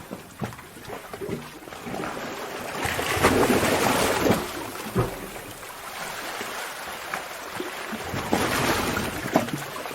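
Sea water surging and sloshing in a sea cave. It swells about three seconds in and again near the end, with a few sharp splashes, the strongest about five seconds in.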